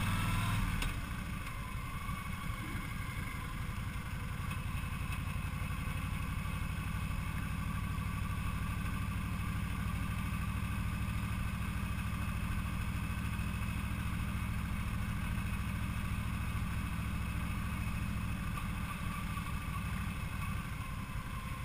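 Cruiser motorcycle's V-twin engine running at a steady cruise, heard from the moving bike with wind noise over it. In the first second the pitch rises, then the engine note drops back and holds steady.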